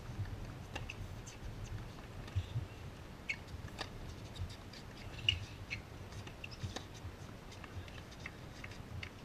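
Tennis rally heard from afar: an irregular string of faint, sharp racket hits and ball bounces, the loudest about five seconds in, over a low steady rumble.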